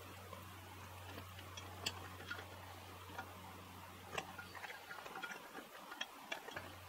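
Light clicks and scrapes of a metal knife blade against a waffle iron as a waffle is pried loose from the plates, a few scattered taps at first and a quicker run of them in the second half.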